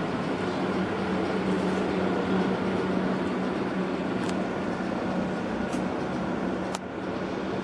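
Steady mechanical hum with a held low tone, with a few faint clicks in the second half.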